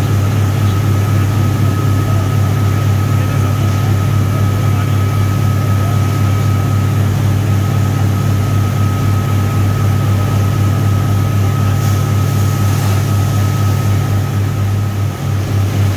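Wood pellet production line machinery running: a steady, loud low hum of electric motors with a thin steady whine above it.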